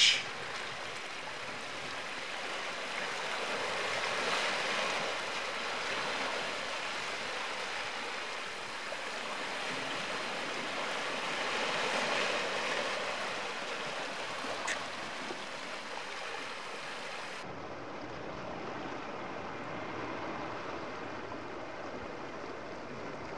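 Sea water washing and sloshing against a rocky shore, a steady rush that swells twice and ebbs.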